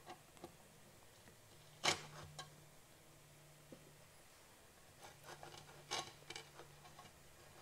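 Faint clicks and scrapes of a tool levering the old rear housing out of a KEF Kube-2 subwoofer, with one sharper click about two seconds in and a few more between five and six and a half seconds, over a faint low hum.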